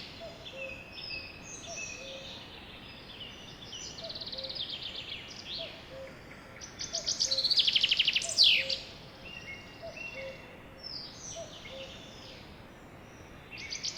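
Several songbirds singing: a loud song made of a fast trill ending in a downward slur comes twice, about seven seconds apart, with quieter chirps and whistled phrases from other birds in between. A faint low note repeats about once a second underneath.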